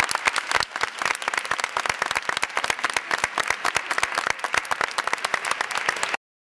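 Audience applauding: dense, irregular hand clapping that cuts off suddenly about six seconds in.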